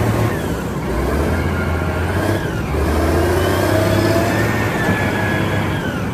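Caterpillar 990 wheel loader's diesel engine running under load, its note rising and falling as it dumps its bucket and moves off, with a whine riding over the engine hum.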